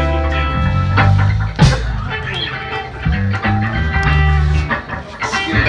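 Live band playing guitar-led rock, with electric guitar over bass guitar and drums.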